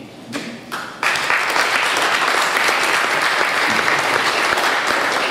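Audience applauding: a few scattered claps, then full applause breaking out about a second in and holding steady.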